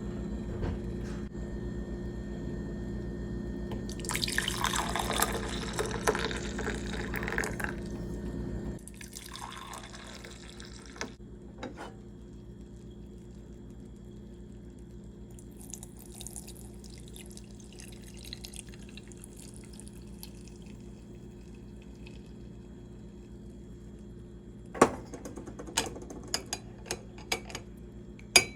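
Liquid pouring and splashing over a steady hum; the hum cuts off suddenly about nine seconds in. Near the end come a series of sharp clinks.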